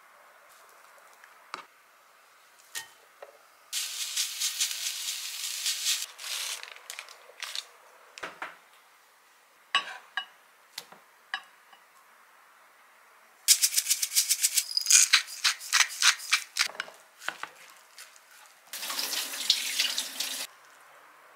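A plastic rice paddle scooping and stirring cooked rice in a pot and a glass bowl: three spells of quick rasping, scraping strokes, with single clicks and taps in between.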